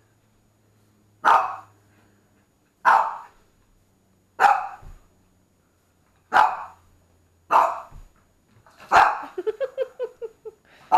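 Cavalier King Charles spaniel barking in single loud barks about every second and a half at a spot of phone light it is chasing on the wall, then a quick run of short yelps near the end.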